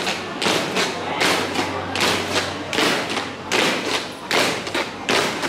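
A column of ceremonial guards marching in step, their boots striking stone paving in a steady rhythm of about two to three footfalls a second.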